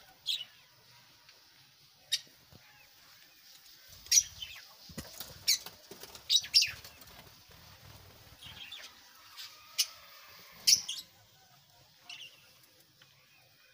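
Caged lovebirds giving scattered sharp, shrill chirps, about a dozen short calls, most of them bunched in the middle.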